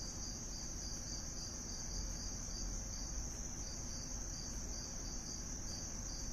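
Crickets chirring steadily, a continuous high-pitched trill with a pulsing edge, over a low hum.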